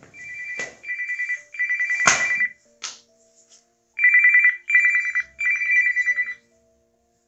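Smartphone ringing with an incoming call: a trilling electronic ringtone in short bursts, three in a row, a pause, then three more. A few sharp knocks sound over the first rings, the loudest about two seconds in.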